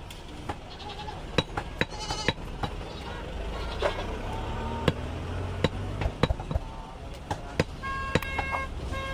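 Goats bleating in short, quavering calls about two seconds in, around four seconds, and again near the end. Irregular sharp knocks of cleavers on wooden chopping blocks run throughout.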